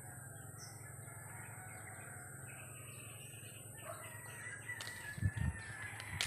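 A rooster crowing faintly, with small birds chirping. A few low thumps come near the end.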